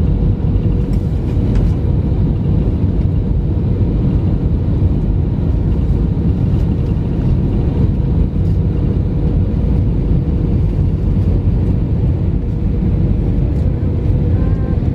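Airbus A320 cabin noise during the landing approach: a steady low rumble of engines and airflow with a faint steady hum.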